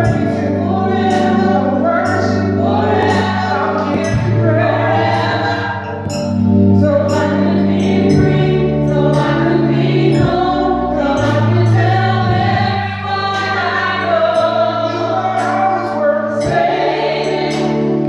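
Gospel choir singing with band accompaniment, held bass notes changing every couple of seconds under the voices.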